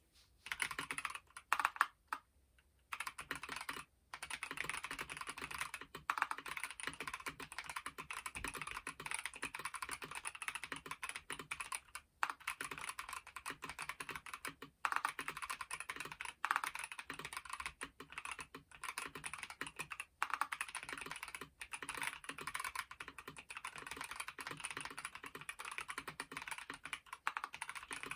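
Fast typing on a KBD67 Lite mechanical keyboard with stock Boba U4T 62 g tactile switches, a dense stream of keystrokes broken by a few brief pauses.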